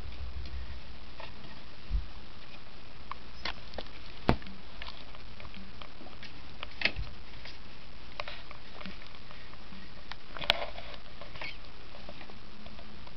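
Scattered light taps, scratches and scuffles of a kitten and its mother cat playing, over a steady background hiss. A few sharper knocks stand out, about two, four, seven and ten seconds in.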